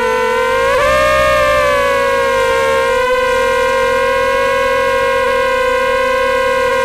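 Jumper Pro 218 FPV quadcopter's motors and propellers whining, heard from its own onboard camera; the pitch rises briefly about a second in as the throttle comes up, then settles to a steady tone.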